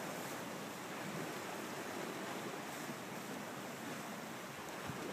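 Steady wash of wind and small sea waves against a rocky shore, an even hiss with no distinct events.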